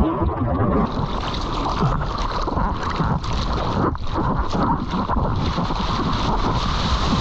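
Seawater rushing and splashing around an action camera at water level as a surfboard moves through choppy sea, with wind buffeting the microphone.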